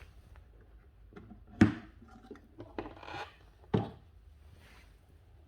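Handling noises from a folded portable typewriter and its case: soft rubbing and scraping, with two sharp knocks, one about a second and a half in and one near four seconds.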